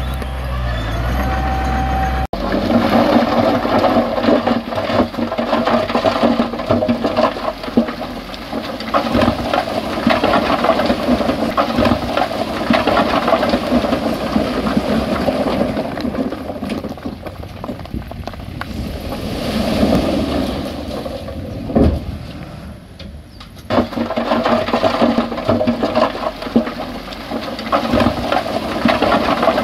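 After a cut about two seconds in, a low engine hum gives way to rocky soil and stones pouring and sliding: a steady rush full of small clatters, dipping briefly about three quarters of the way through.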